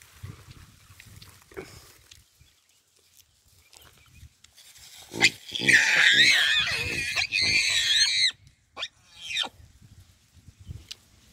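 Hamadryas baboons screaming: a loud burst of high, wavering squeals about five seconds in that lasts some three seconds, followed by two short calls.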